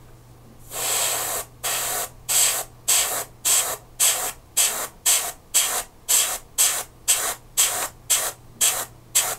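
Airbrush spraying primer in short pulses: one longer burst about a second in, then short regular bursts about two a second.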